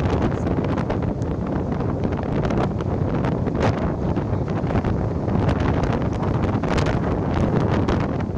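Strong storm wind blowing across the microphone: a loud, steady rushing noise with frequent gusty crackles.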